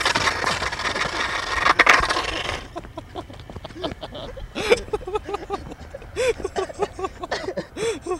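Skateboard wheels rolling on rough concrete after a bail, with a sharp knock about two seconds in, then the rolling stops. After that come short, repeated vocal sounds from a person catching his breath.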